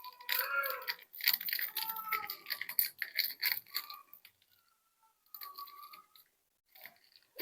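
Plastic candy wrappers crinkling and being torn open, a run of quick crackles and squeaks with a short lull about four seconds in.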